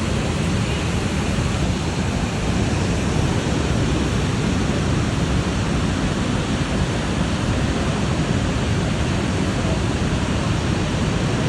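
Kravica Waterfalls' falling water rushing steadily as one dense, unbroken noise, heaviest in the low end.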